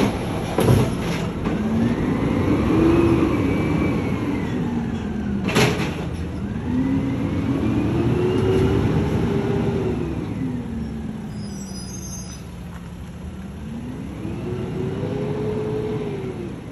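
Automated side-loader garbage truck's engine revving up and falling back three times as it works and pulls away. There is a sharp metallic clank about five and a half seconds in, and lighter clunks near the start.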